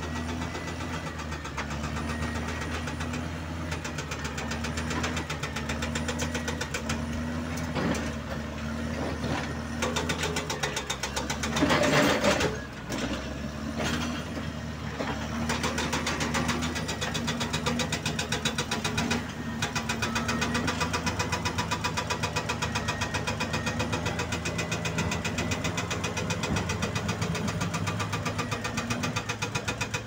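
Diesel engines of a Caterpillar bulldozer and excavators running steadily under work. About twelve seconds in there is a louder noisy burst, the loudest moment.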